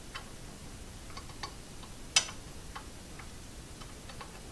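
Scattered small, irregular clicks of a Torx screwdriver tip working into a screw on a metal earthing connector inside a 3D printer frame, with one sharper click about two seconds in.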